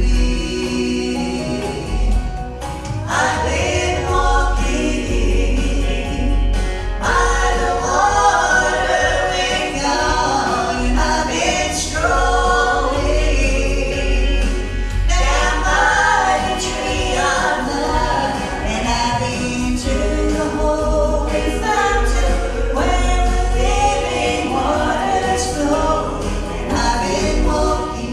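Gospel vocal group singing a slow song in harmony over backing music with a steady deep bass.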